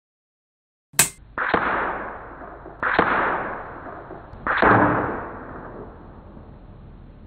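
A short click, then three sharp cracks about a second and a half apart, each trailing off in a long hiss.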